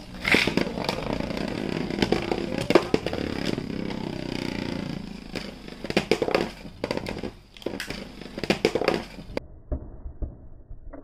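Homemade cardboard Beyblade tops spinning in a plastic bowl: a steady scraping rattle with many sharp clacks as they knock together and against the bowl. About halfway through it thins into scattered separate knocks, and it cuts off abruptly near the end.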